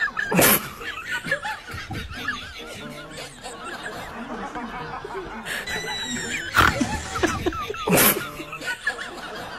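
People laughing in snickers and chuckles, broken by three sharp knocks or bangs about half a second, six and a half seconds and eight seconds in.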